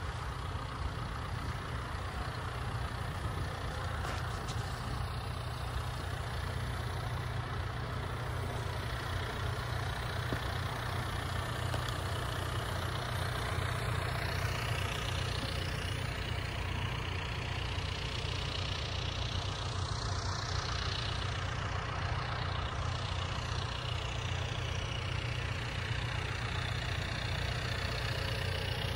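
Compact crawler dozer's diesel engine running steadily, a continuous low drone that grows a little louder around the middle as the machine comes close.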